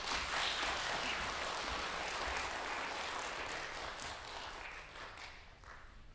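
Audience applauding, a dense patter of many hands clapping that gradually dies away over the last couple of seconds.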